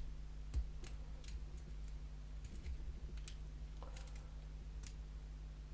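Hook pick working the pins of a six-pin Euro cylinder lock under tension: scattered light clicks of the pick lifting and setting pins, spaced unevenly, over a steady low hum.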